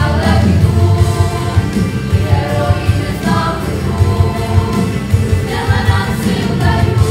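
A children's vocal ensemble singing a song together over an instrumental accompaniment.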